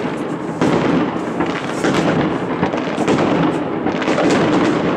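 Fireworks going off in a continuous barrage: many overlapping bangs and crackling reports, with no pause between them.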